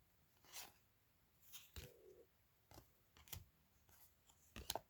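Faint, soft clicks and slides of trading cards being flipped through by hand, about seven in all.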